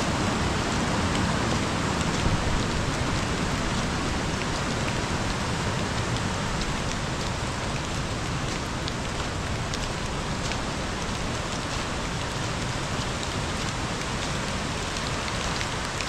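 The River Okement in full spate: a steady rush of fast-flowing water with a faint patter of fine ticks through it. It eases very slightly toward the end.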